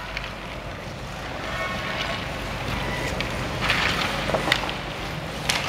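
Youth ice hockey practice on an indoor rink: skates scraping the ice and sticks and puck clacking, with a few sharp knocks, the loudest about four and a half seconds in, over the hall's steady hum.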